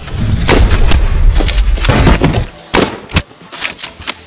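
Gunfire: a long rumbling burst of shots lasting about two and a half seconds, then a few single sharp shots.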